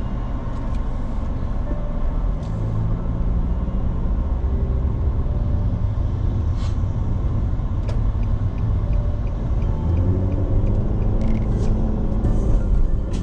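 Car driving through city traffic: steady low engine and road rumble, with the engine note rising about ten seconds in as it accelerates.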